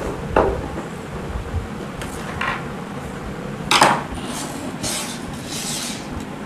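Plastic electric mosquito-bat casings and parts being handled on a workbench: a few sharp knocks and clicks, the loudest about four seconds in, then a couple of seconds of rustling and rubbing.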